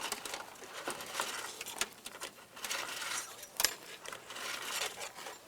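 Wiring being pulled by hand through a rubber door grommet and accordion boot: rubbing and rustling with scattered small clicks, and one sharper click about three and a half seconds in.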